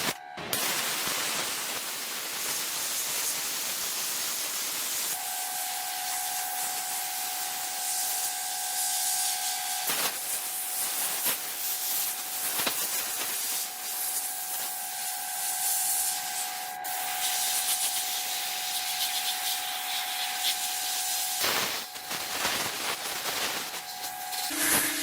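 Steady abrasive hiss of rust and finish being worked off metal. About five seconds in, a small motor's steady whine joins it and holds until just before the end.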